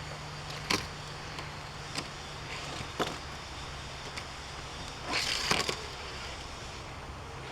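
A diecast 1935 Ford pickup toy truck rolling along a plastic toy car track, fitting snugly between the rails: a few sharp clicks in the first three seconds, then a rolling rattle lasting about half a second, about five seconds in, over a low steady hum.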